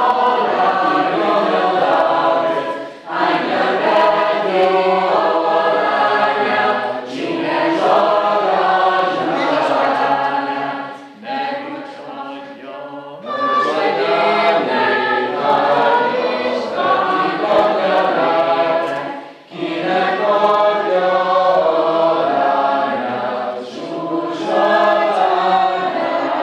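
Teenage mixed school choir singing a Hungarian song in rehearsal, in phrases with brief breaths between and a softer stretch near the middle.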